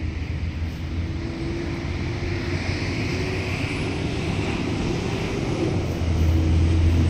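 Distant engine noise from passing traffic, a steady rumble that swells to a peak about halfway through and eases off.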